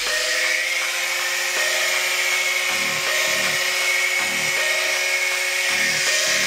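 Angle grinder with a cutoff wheel running steadily as it cuts through sheet metal, a steady high whine over a loud grinding hiss.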